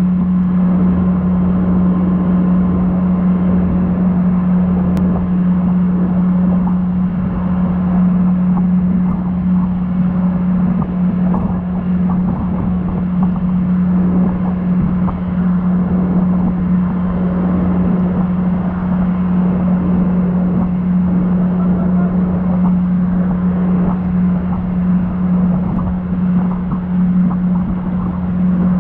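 Towing wakesurf boat's engine running as a steady drone at constant speed, over the rushing of the churning wake and spray.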